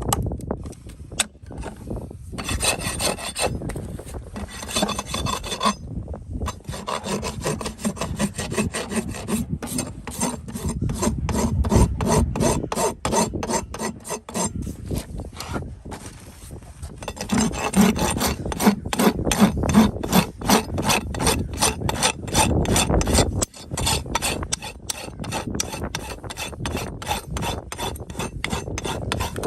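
Farrier's rasp filing a horse's hoof in repeated back-and-forth strokes, with a few brief pauses.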